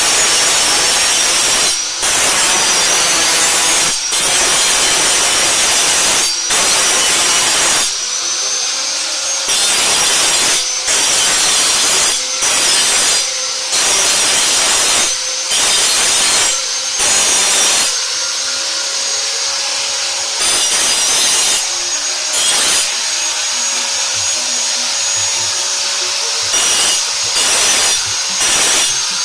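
Electric power tool running with a steady motor whine while it works metal on a hoe, in repeated loud bouts of grinding or cutting about a second long with brief easings in between.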